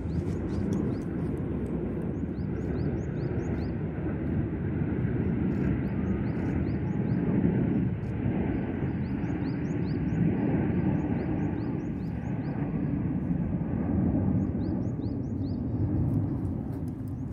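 Steady low rumble of Blue Impulse Kawasaki T-4 jet aircraft flying overhead, swelling and easing slowly. A bird chirps over it in repeated short, high, upward-flicking notes.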